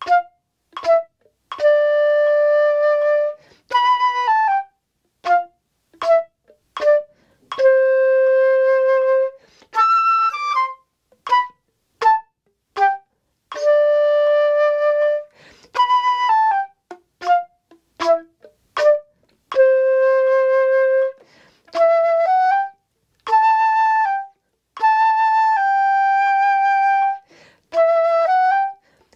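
Solo rose-gold concert flute playing a slow melody, with short detached notes alternating with longer held notes and brief breaths between phrases.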